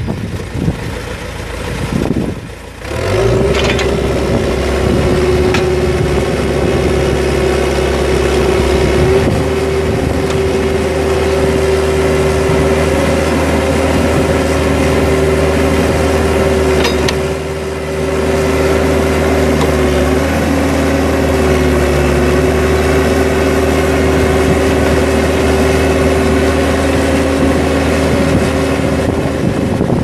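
John Deere 310SE backhoe loader's 4.5-litre four-cylinder turbo diesel running steadily while the backhoe boom and bucket are worked on the hydraulics. A steady whine sits over the engine drone from about three seconds in.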